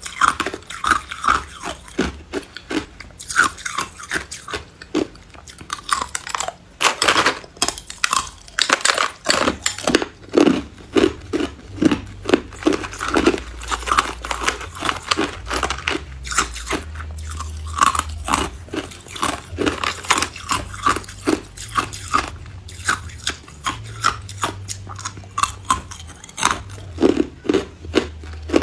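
Hard ice cubes being bitten and chewed close to the microphone: a steady run of loud, sharp crunches, several a second, with a faint low hum underneath.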